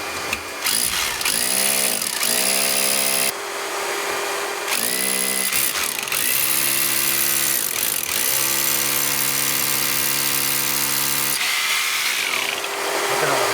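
Electric drill boring a hole through a wall. The motor spins up in several short pulls, then runs steadily under load with a hiss of cutting for about five seconds, and runs down near the end.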